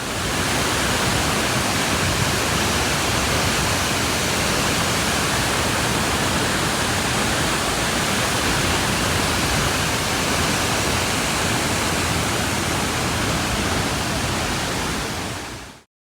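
Steady, loud rushing of falling water, fading in at the start and fading out near the end.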